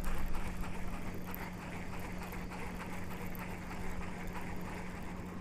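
Steady open-water background noise on a boat, mostly wind and water, with a constant low hum running under it. No single event stands out.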